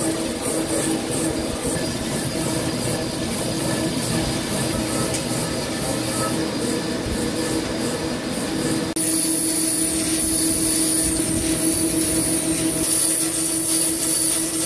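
Vertical CNC lathe running as it turns a forged steel ring under flood coolant: a steady mechanical drone with a constant hum tone and spraying coolant. About nine seconds in the sound cuts abruptly to a slightly louder stretch with a steady high-pitched whine added.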